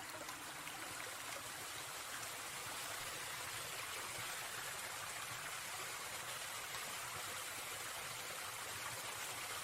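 Steady rushing of a flowing stream, an even wash of water noise.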